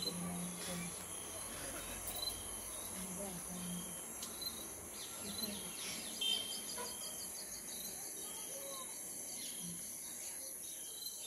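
Outdoor ambience: insects hold a steady high-pitched drone, with short bird chirps scattered throughout.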